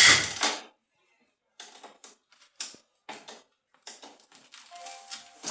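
Honda CR250R two-stroke motocross bike, freshly rebuilt, being kicked over on its kickstarter without firing. There is a loud kick at the start, then scattered short mechanical clatters and clicks, until the engine catches right at the end.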